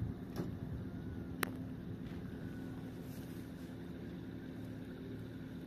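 An engine running steadily with a low, even hum, and one sharp click about a second and a half in.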